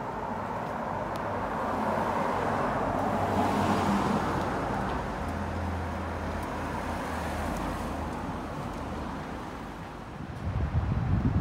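Street traffic noise: a passing vehicle swells and fades over a few seconds, followed by a low steady hum. Wind buffets the microphone near the end.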